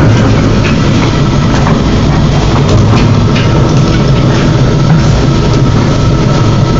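1998 Challenger hopper-fed grinder running, a loud steady drone of engine and rotor with scattered sharp knocks and clatter throughout.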